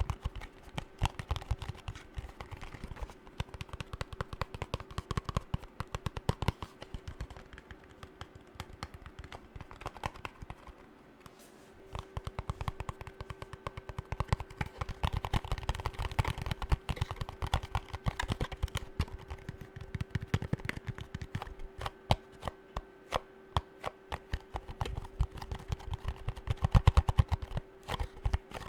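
Fast, rapid fingernail tapping on hard objects, an ASMR trigger, with a brief lull about eleven seconds in. A faint steady hum sits underneath.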